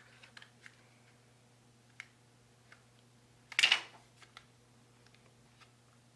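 Light clicks and taps of fingers working the connector cable off a swollen laptop battery, with a louder clattering handful of clicks a little past halfway. A faint steady low hum runs underneath.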